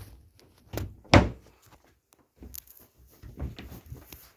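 A few knocks and thumps, the loudest about a second in, then softer scattered bumps.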